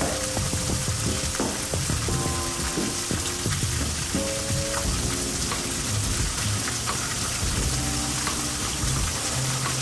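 Heavy rain pouring down in a steady, dense hiss of falling water, with a low rumble underneath.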